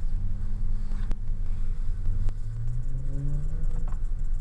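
Car engine idling, heard from inside the cabin as a steady low hum and rumble, with two faint clicks.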